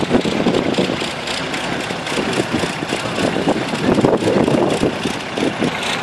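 Vintage tractor engine running steadily while pulling a plough.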